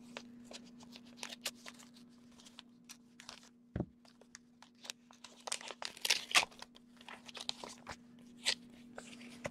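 Paper envelope being slit open and torn, then the paper inside pulled out and handled: a scatter of sharp crinkles and tears, busiest about six seconds in, with one duller knock near four seconds in.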